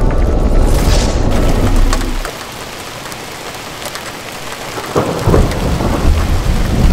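Heavy rain with rolling thunder: a loud low rumble for about the first two seconds, a steady hiss of rain when it dies away, and the rumble building again about five seconds in.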